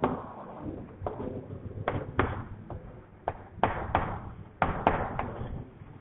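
Chalk writing on a blackboard: a string of irregular sharp taps and short scrapes as the chalk strikes and drags across the board, dying away after about five seconds.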